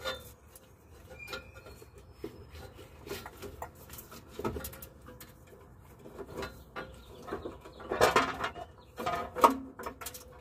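Irregular metallic clicks and clunks from a ratchet working a transmission jack while an AW4 automatic transmission is positioned, with a louder cluster of knocks near the end.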